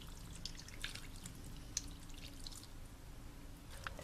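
Hot milk poured into a bowl of mashed potatoes and butter: a faint trickle with small scattered drips.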